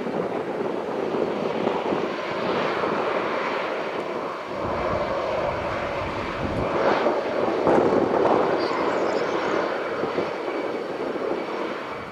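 Airbus A320 jet engines running as the airliner rolls along the runway: a steady rush of jet noise that swells slightly about seven to eight seconds in.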